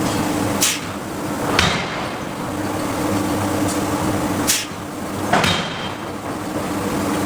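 Hydraulic forging hammer striking hot steel four times, in two pairs a few seconds apart, over a steady machine hum.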